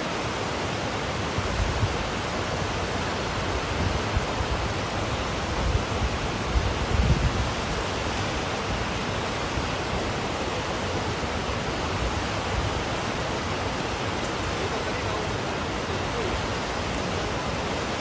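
Waterfall pouring over rock ledges into a pool: a steady rush of falling water. A few low buffets of wind on the microphone come through in the first half.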